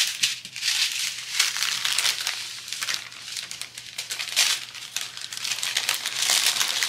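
Clear plastic bags of diamond-painting drills crinkling and crackling as they are handled, with a lighter spell about halfway through.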